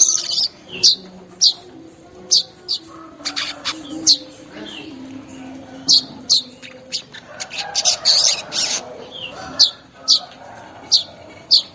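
Weaverbird (manyar) calling: a run of short, sharp, high chirps that drop in pitch, roughly one every half second to a second, broken by bursts of rapid chattering notes.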